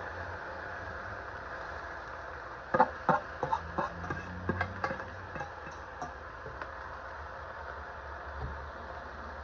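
A quick run of sharp clicks and knocks, utensils against a stew pot as seasoning goes in, from about three to six seconds in, over a steady low hum.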